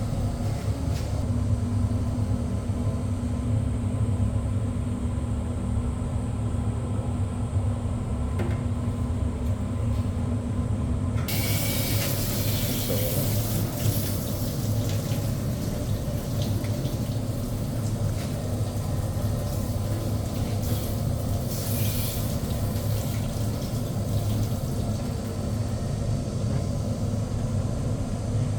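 Automatic stir-fry machine running with a steady low hum. About 11 seconds in a loud hiss starts suddenly and fades over a few seconds, with a shorter hiss again a little after 20 seconds.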